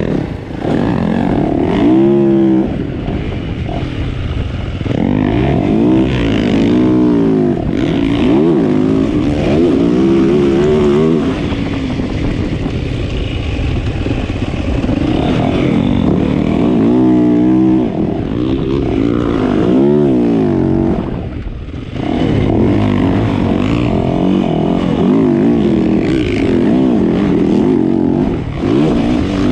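65cc two-stroke motocross bikes revving hard through the track, the engine pitch repeatedly climbing and dropping as the riders open and close the throttle.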